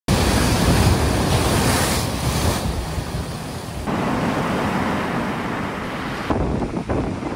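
Strong gale-force wind blowing across a phone microphone: a loud rushing noise with deep, uneven buffeting. The sound shifts abruptly several times.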